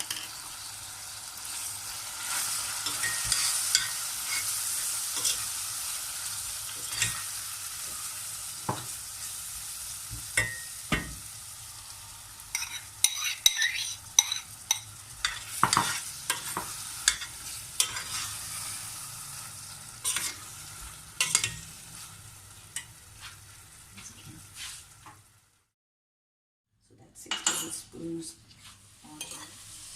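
Food frying and sizzling in a pot while it is stirred, the spoon clicking and scraping against the pot, busiest in the middle. The sound cuts out completely for a moment near the end, then the stirring and sizzling resume.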